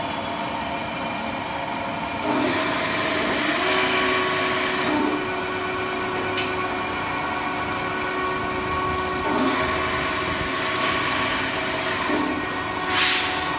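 Manual metal lathe running at slow speed while a tool cuts a soft copper workpiece: a steady machine hum with spells of hissing cutting noise, and a steady squealing tone held for several seconds from about three seconds in.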